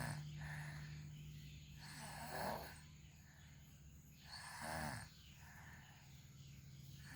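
A person snoring in slow, regular breaths, with a snore about every two and a half seconds.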